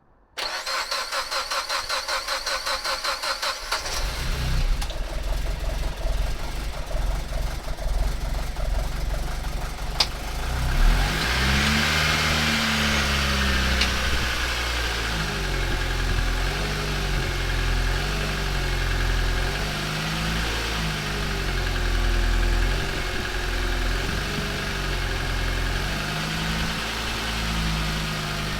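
A freshly rebuilt Mitsubishi 4B11T turbocharged four-cylinder engine in a Lancer Evolution X cranks on the starter for about four seconds on its first start after the rebuild. It then catches and runs, its revs rising and falling as it settles.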